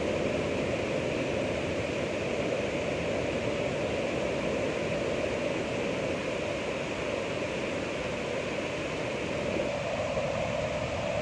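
Ocean surf as a steady rushing noise, with no separate wave breaks standing out; the lower part of the sound dips slightly near the end.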